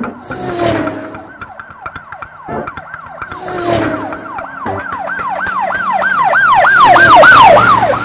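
Background music with a siren-like swooping tone, about three sweeps a second, growing louder toward the end and then breaking off, over noisy cymbal-like washes that come round every few seconds.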